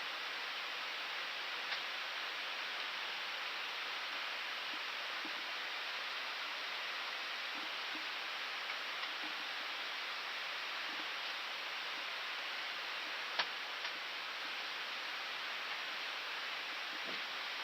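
Steady hiss of an Airbus A319 cockpit in flight: airflow and ventilation noise, with a single sharp click about thirteen seconds in.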